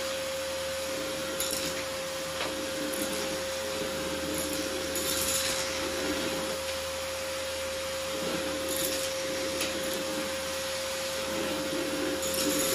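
Canister vacuum cleaner running, a steady motor whine over the rush of suction, as its bare metal wand is swept over a wooden floor sucking up small bits of debris. The suction noise swells and eases every few seconds as the wand moves.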